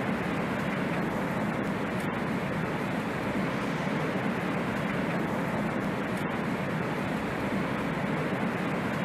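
Steady rushing roar of strong wind around a tornado.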